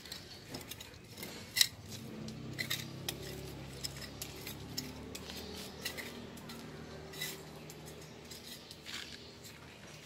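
Steel plastering trowel scraping and clicking against wet cement render and its mortar bucket: an irregular run of sharp clicks and scrapes, the loudest about one and a half seconds in, over a faint low hum.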